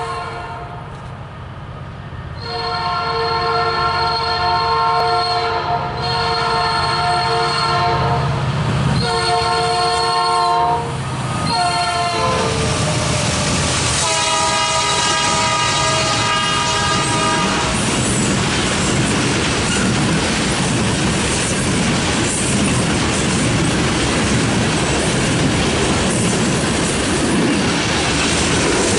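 Norfolk Southern freight locomotives sounding their air horn in several long and short blasts as they approach, the last blast lower in pitch as the locomotives pass, over the heavy rumble of the diesel engines. After that, freight cars (gondolas and covered hoppers) roll steadily past with the clickety-clack of wheels on rail joints.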